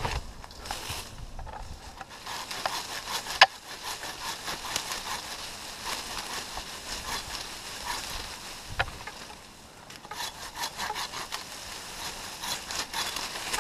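Hand pruning saw cutting through an oak limb in repeated back-and-forth strokes. A sharp knock sounds about three and a half seconds in, and a smaller one near nine seconds.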